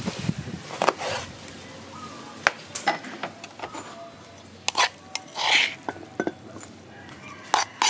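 Scattered sharp clinks and knocks of kitchen utensils on crockery, with a few longer scraping sweeps: chopped seafood dipping sauce being moved from a clay mortar into a ceramic bowl. At the very start there are knife knocks on a wooden chopping board as limes are cut.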